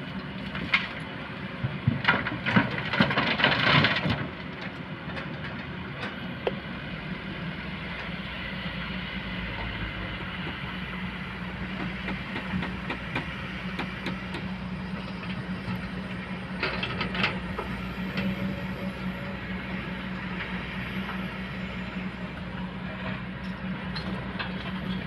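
Kobelco excavator's diesel engine running steadily, with a cluster of loud metallic clanks and knocks about two to four seconds in and a shorter one near seventeen seconds.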